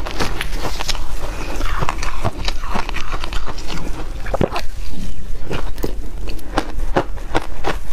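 Ice being crunched and chewed close to the microphone, a dense, irregular run of sharp cracks and crackles, with pieces of ice in passion fruit juice and pulp.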